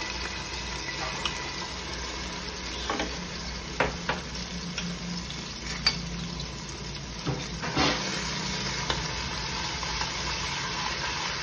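Ginger-garlic paste sizzling steadily as it fries in hot oil in an aluminium pressure cooker. A metal spoon scrapes and stirs it, with a few sharp clinks in the middle of the stretch.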